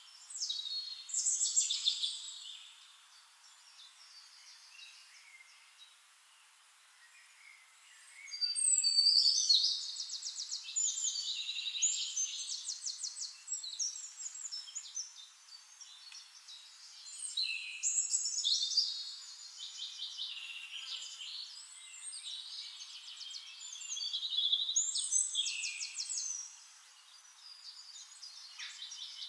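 Songbirds singing in a forest: several birds overlapping with high-pitched warbles, chirps and rapid trills, coming in bouts with quieter gaps of a few seconds between them.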